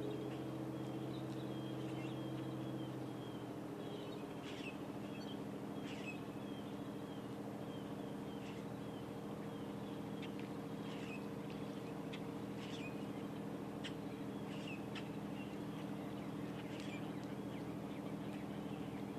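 Workboat engine running at low speed, a steady hum that drops a little in pitch about three seconds in, with birds chirping.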